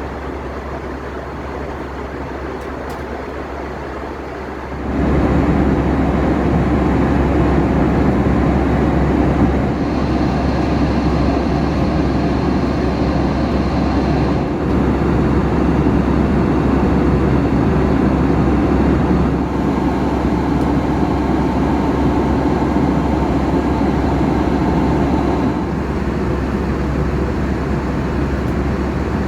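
Steady cabin noise of an Airbus A321 in cruise: a continuous rumble and rush of engines and airflow. It steps up in loudness about five seconds in and eases slightly near the end.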